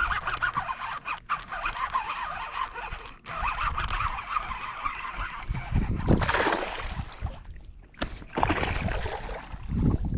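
Geese honking repeatedly in a busy series of short calls, then two louder bursts of noise about six and nine seconds in.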